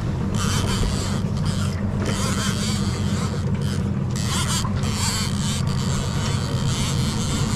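Yamaha 30 hp outboard motor running steadily, a constant low engine hum, with wind and water noise over it.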